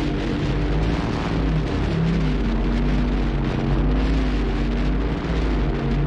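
Strong sea wind buffeting the microphone: a heavy low rumble with gusting hiss.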